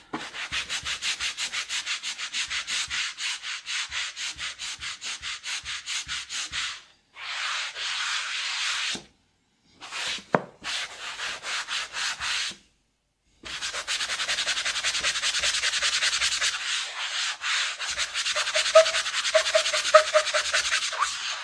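A white cleaning pad scrubbed hard back and forth over the plastic case of a Macintosh 512Ke, in quick rasping strokes with a few short pauses. A few faint squeaks from the pad come through near the end.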